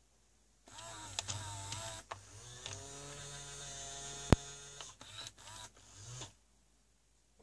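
Battery-powered FurReal toy cat working: its small internal motor whirs as it moves, with electronic meows from its speaker and one sharp click about four seconds in. The sound starts a moment in and stops about six seconds in.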